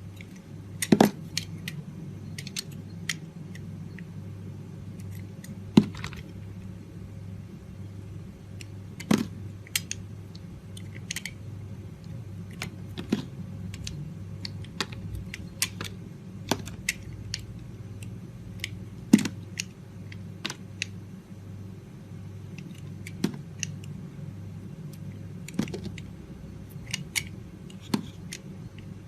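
Dry soap being cut with a blade: a run of crisp crackles and snaps, with a louder snap every few seconds, over a steady low hum.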